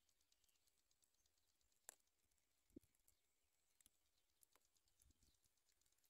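Near silence, with faint scattered clicks and ticks; two slightly stronger clicks come about two seconds and three seconds in.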